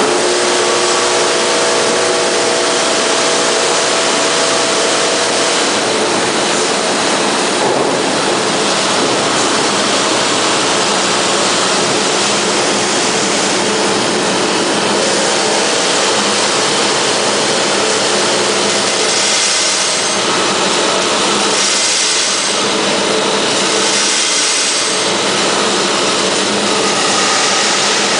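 Screw-head slotting machine running, a loud, steady machine noise with a few faint steady tones in the first six seconds. Short bursts of high hiss come about 19, 22 and 24 seconds in.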